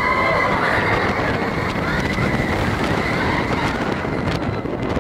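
Steel roller coaster train running at speed: wind rushing over the microphone and a steady rumble of the wheels on the track. A high, held scream from riders sounds over the first second or so.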